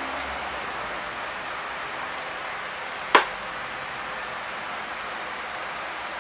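Steady hiss of background noise, with a single sharp click a little over three seconds in.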